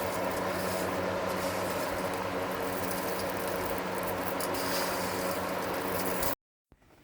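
Electric fan running with a steady motor hum and rushing air, blowing the husks off dried sunflower seeds. It cuts off abruptly near the end.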